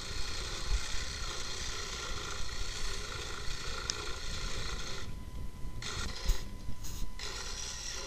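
Reciprocating saw cutting through wooden ceiling boards. It stops briefly twice in the last few seconds.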